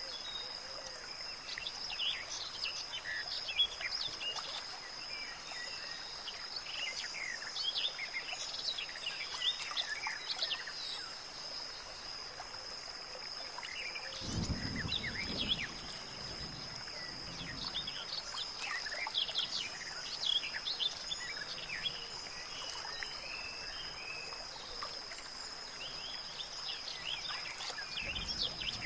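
Outdoor nature ambience: many short bird chirps over a steady high-pitched drone and a soft background hiss, with a brief low rumble about halfway through.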